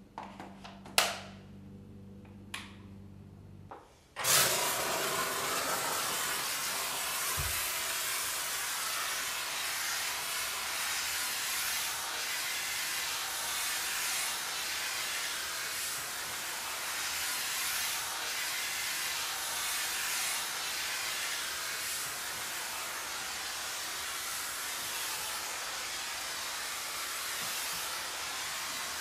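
Kärcher SC 1020 steam cleaner: two sharp clicks of the hand nozzle being handled, then from about four seconds in a steady hiss of steam jetting from the microfibre-covered hand nozzle.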